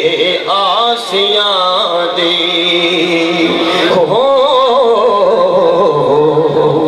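A man singing a devotional song into a microphone, amplified over a sound system, with long held notes that bend and waver in pitch.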